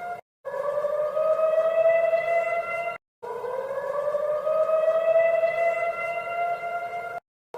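Emergency alert siren sounding in long blasts of several tones together, each blast rising in pitch and then holding steady. The blasts are broken off by short, abrupt silences: one of about two and a half seconds, then one of about four, with the next beginning at the very end.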